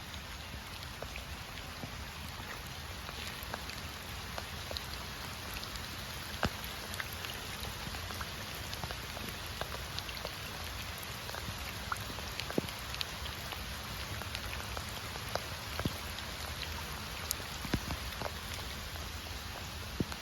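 Steady rain falling, an even hiss with scattered sharp drip ticks as drops hit nearby surfaces.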